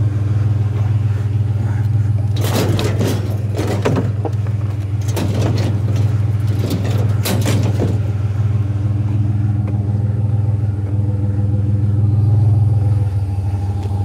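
Pickup truck engine idling with a steady low hum. From about two and a half to eight seconds in, a bicycle is shoved onto a load of scrap metal and wire shopping carts, making a run of metal clanks and rattles.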